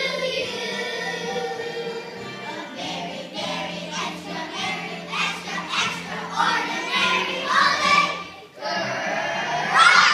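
Children's choir singing a holiday song over a steady low accompaniment, with a short break near the end before a louder phrase.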